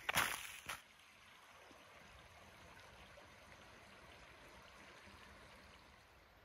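Footsteps crunching through frosted leaf litter on a trail, a few steps that stop within the first second. After that only a faint steady hiss.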